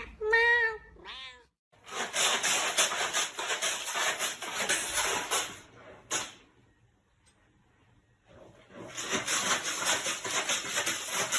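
A cat meowing in short, bending cries at the start. These are followed by two long stretches of rough, noisy sound, one from about two seconds in and another near the end.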